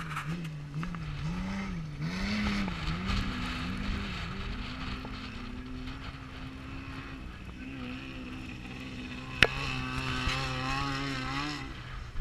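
Off-road race vehicle engine running under changing throttle, its pitch rising and falling in quick waves for the first few seconds, then steadier. A single sharp knock comes about nine and a half seconds in.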